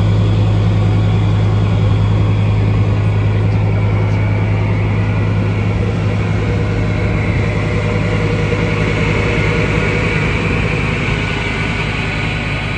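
Puma infantry fighting vehicle's MTU V10 diesel engine idling steadily: a deep, even hum with a higher whine that grows stronger in the second half.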